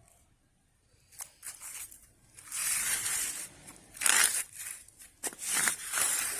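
Rustling and scraping from hands handling things at close range, in irregular bursts with a few sharp clicks, louder from about halfway through.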